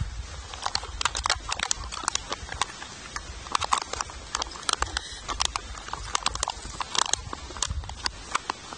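Plastic instant-noodle packet crinkling and crackling as it is handled and torn open, in quick irregular snaps.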